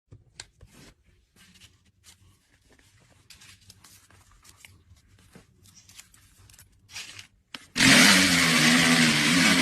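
Faint handling clicks and rustles, then near the end a small electric motor starts and runs steadily with a loud whirring hum.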